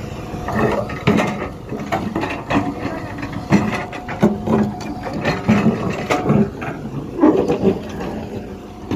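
Tata Hitachi Zaxis 120H excavator bucket digging into rocky earth, stones knocking and scraping against the steel bucket in irregular clatters, over the steady hum of the machine's diesel engine.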